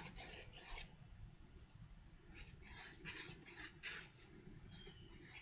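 Sandpaper scrubbed back and forth over a rusty Stanley No. 64 spokeshave to knock the rust off: faint scratchy strokes, with a quick run of them around the middle.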